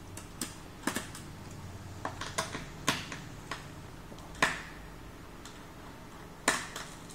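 Irregular sharp clicks and taps of a small screwdriver and plastic laptop casing being handled while a laptop is taken apart, about seven in all, the loudest about 3, 4.5 and 6.5 seconds in.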